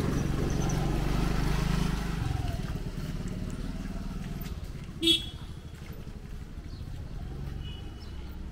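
A motorcycle engine passes close by, loudest in the first two seconds and then fading. About five seconds in there is one short, high horn toot.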